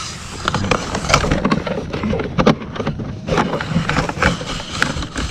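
Electrical cords being pulled and shifted by hand close to the microphone: irregular scrapes, knocks and rustling over a low handling rumble.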